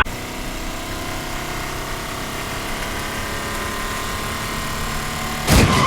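A steady mechanical hum made of several steady tones, with a loud sudden burst near the end.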